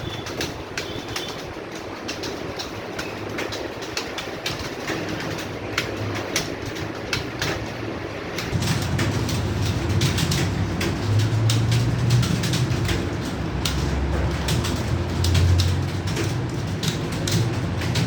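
Many computer keyboards clattering at once as a room of people types steadily. A low hum comes in about halfway through.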